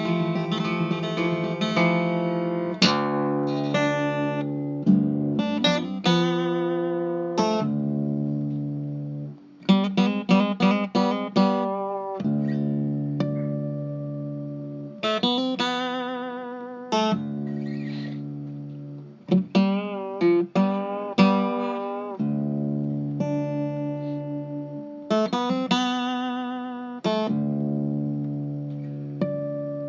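Solo guitar music: chords and single notes left to ring out, broken by a few quick runs of picked or strummed notes.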